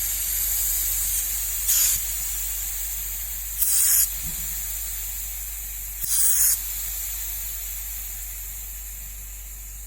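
Repaired refrigerator compressor (FH 142) running on test, with air hissing steadily from its tubes over a low motor hum; three short, louder spurts of hiss come about two, four and six seconds in. It is pumping strongly, a sign that the rewound compressor works.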